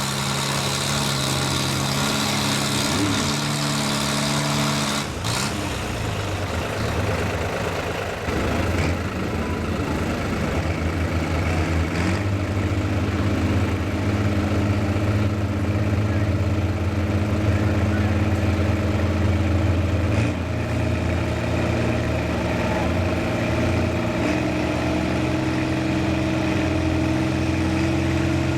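Farm tractor engine running steadily, its pitch stepping up and down several times as the revs change.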